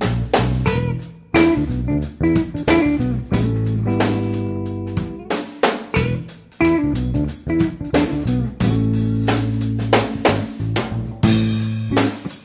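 Background music: plucked guitar over bass and a drum kit.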